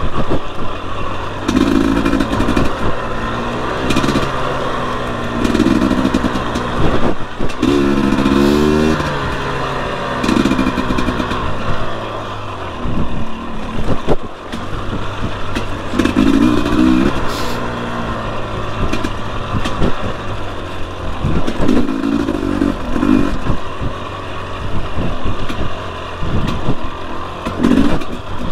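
Fuel-injected single-cylinder two-stroke engine of a 2021 Husqvarna TE250i dirt bike being ridden on trail, revving up and dropping back every few seconds as the throttle is worked. Sharp knocks and clatter from the bike are scattered through it.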